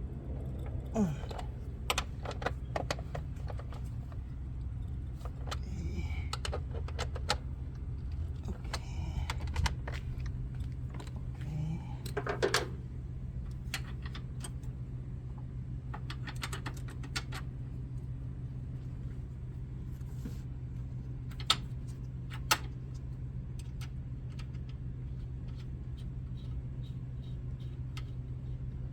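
Scattered clicks, rattles and scrapes of hard metal and plastic parts being handled, with two sharp knocks about three quarters of the way through, over a steady low hum.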